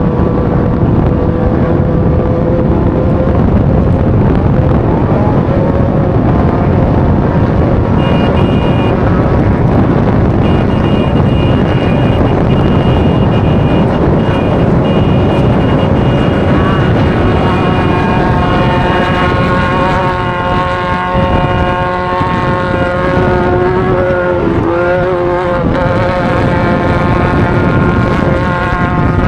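Off-road race vehicle's engine running hard at speed, heard from on board over dense wind and road noise. Its engine note comes through strongly and steadily in the second half.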